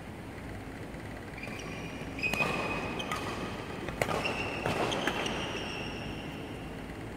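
Badminton rally: four sharp racket hits on a shuttlecock, about a second apart, starting about two seconds in. Between the hits come high squeaks of court shoes on the court floor.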